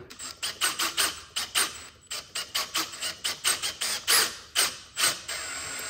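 Cordless drill driving a self-tapping screw into sheet metal in short stuttering bursts, about four a second. It changes to a steady run near the end as the screw bites through.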